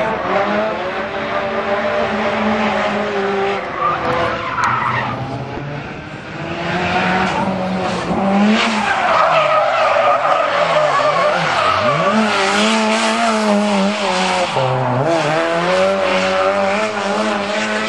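Drift cars' engines revving hard, their pitch swinging up and down as the throttle is worked, with tyres skidding and squealing as they slide through the corners. The revs drop sharply and climb again a couple of times in the second half.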